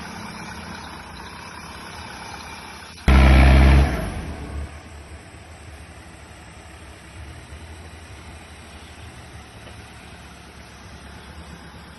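Off-road 4x4 engine running, with a sudden loud burst of revving about three seconds in that dies away over the next second or so.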